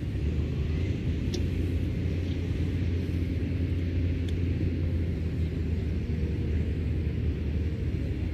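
A low, steady rumble, deepest in the bass, with two faint short high ticks about one and four seconds in.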